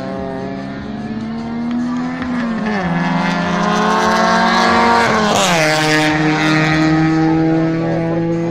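A car's engine accelerating hard on a race track. Its pitch climbs and drops sharply twice as it shifts up through the gears, and it grows louder to a peak about five seconds in, then holds a steadier note.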